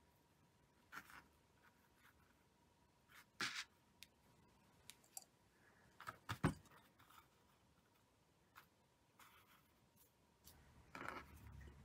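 Faint, scattered clicks and rustles of hands handling tatting thread, lace and a plastic tatting shuttle, with a sharper knock about six seconds in and a soft rustle near the end.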